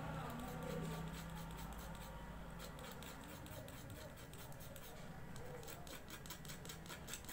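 A small hand tool scraping and picking at the edge of a mobile phone's circuit board, where the LCD is being removed: a fast run of small scratchy ticks, quickest in the second half.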